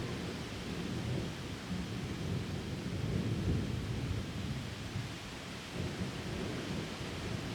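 Thunder rumbling low, swelling and fading, under a steady downpour of rain.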